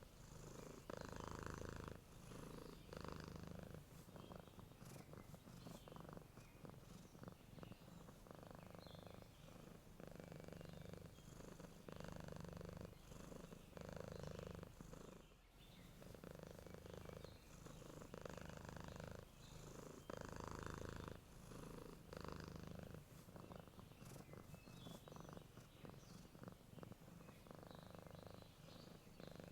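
Domestic cat purring while asleep, the purr swelling and fading with each breath about every two seconds.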